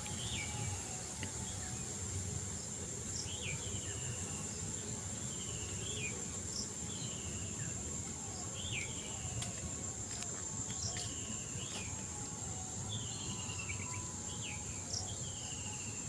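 Riverside insects keep up a steady high-pitched trill while a bird calls over and over, alternating a quick up-and-down note with a falling slurred note about once a second. A low steady rumble runs underneath.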